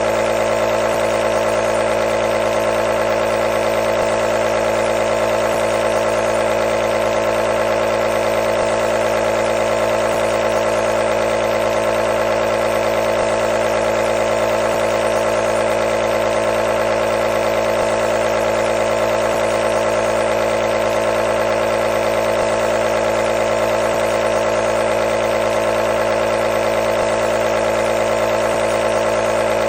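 Compressor nebulizer running continuously: a steady, unchanging mechanical hum from its motor and pump.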